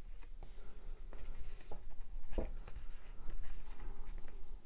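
Fingers pressing and rubbing a Blu-ray disc onto the hub of a cardboard digipak: faint scratchy rubbing with small clicks, one a little louder about two and a half seconds in.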